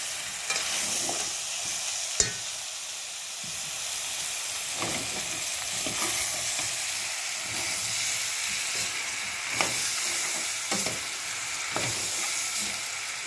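Chunks of luffa frying and sizzling in oil in a stainless steel pot, stirred with a metal spoon that scrapes and clinks against the pot. There is a sharp clink about two seconds in.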